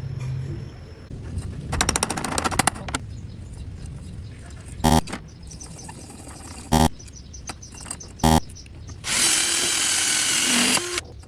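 Power tools at work: a quick run of clicks, then three short separate bursts of a drill, then about two seconds of a louder hissing tool run near the end.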